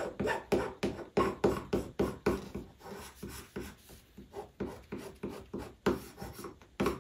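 Burnishing bone rubbed in quick strokes over linen hinge tape on mounting board, about three strokes a second, pressing the tape down and working out trapped air. The strokes ease off in the middle and grow firmer again near the end.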